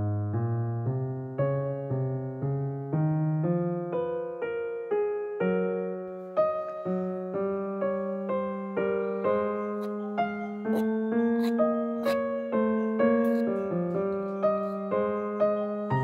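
Gentle background piano music, single notes struck one after another at an even pace of about two a second, each fading before the next. A few faint clicks come through about two-thirds of the way in.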